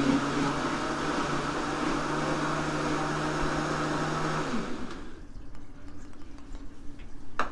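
Countertop blender motor running steadily, blending a liquid mixture of coconut water, coconut meat and sugar to fully incorporate it. It is switched off about four and a half seconds in, and the motor winds down.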